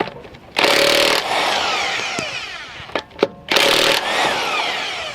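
Impact wrench with a 17 mm socket spinning off wheel lug nuts: two short loud bursts about three seconds apart, each trailing off in a falling whine as the tool winds down.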